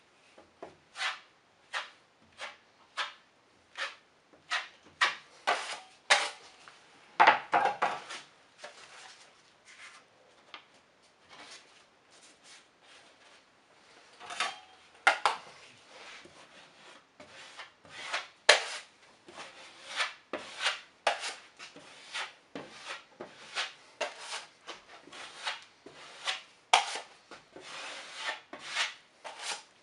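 Steel drywall knife scraping joint compound across drywall and against the edge of a metal mud pan, in a run of short strokes about one to two a second, with one longer scrape about seven seconds in.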